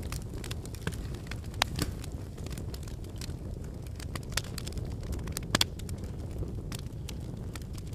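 Wood fire burning in a fireplace: a steady low rumble of flame with irregular sharp crackles and pops, a few of them louder, the strongest about five and a half seconds in.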